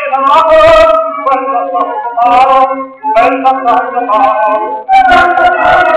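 Spring-wound acoustic gramophone playing music from a disc record, a run of changing phrases with short breaks.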